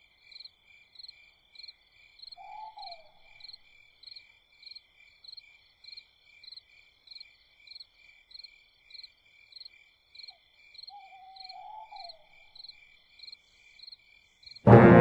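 Night ambience of crickets chirping evenly, about twice a second, with an owl hooting twice: one short hoot early, and a short note followed by a long wavering hoot later on. A full orchestra comes in loudly at the very end.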